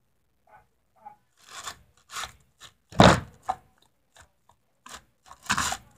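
Glue-and-shaving-gel slime being kneaded and slapped by hand on a tabletop: a run of short thumps and slaps. The loudest comes about three seconds in and another cluster near the end.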